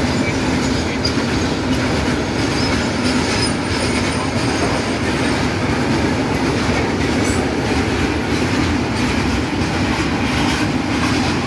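A freight train of tank wagons passing close by at steady speed: the even, continuous noise of steel wagon wheels rolling on the rails.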